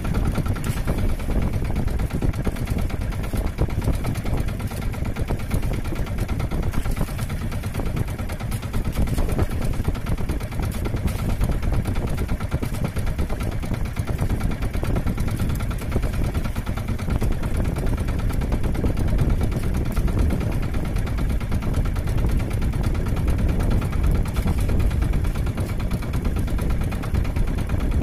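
Engine of a motorized outrigger fishing boat (bangka) running steadily, with no change in speed.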